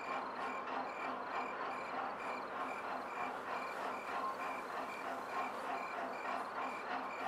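Insects chirping in an even, unbroken rhythm, about three high chirps a second, over a steady hiss.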